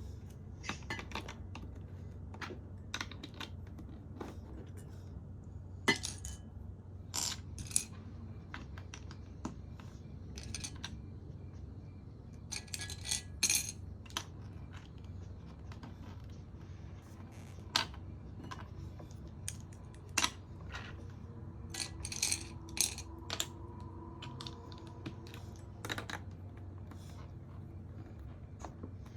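Small plastic LEGO bricks clicking and clattering as they are handled and snapped together: irregular sharp clicks, some in quick clusters, over a steady low hum.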